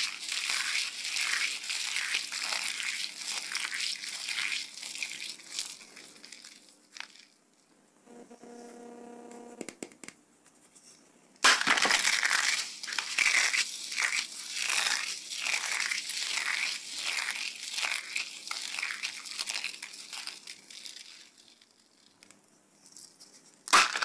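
Dry soap pieces (cut soap squares, small soap balls and thin soap plates) crushed and crumbled between the fingers, a dense crackly crunching. It fades out about a third of the way in, starts again suddenly at the halfway mark and runs on, then fades again and comes back loudly just at the end.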